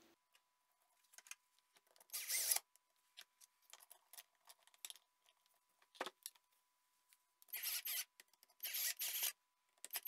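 Small clicks and rubs of plastic and metal parts being handled, then a Metabo cordless drill-driver run in short bursts of about half a second: once about two seconds in and twice near the end, driving screws that fasten a tacho sensor to a washing-machine motor's end shield.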